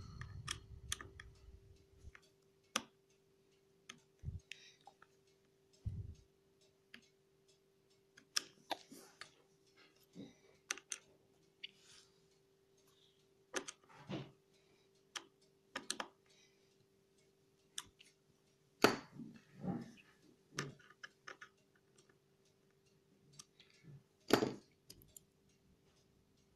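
Irregular light clicks and taps from handling the laptop's plastic bottom cover, with a soft low thump at the start as a hand presses on the case, over a faint steady hum.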